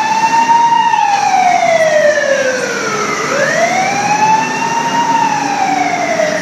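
Aerial ladder fire truck's siren wailing as the truck pulls away. Its pitch rises and falls slowly, about two full swells.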